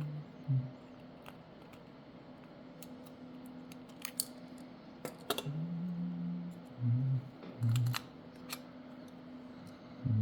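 Several sharp small clicks and snaps, a cluster about four to five seconds in and another near eight seconds, from tools and parts being handled while the phone is taken apart. A few held low notes sound underneath.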